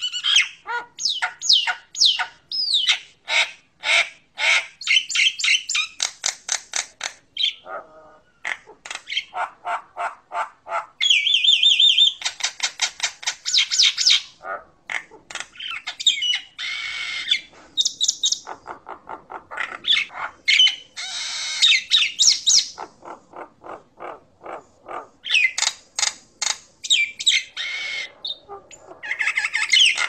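Common myna (Jalak Nias) singing a long, varied song: fast runs of short clicking, chattering notes broken by harsh squawks and whistled slides.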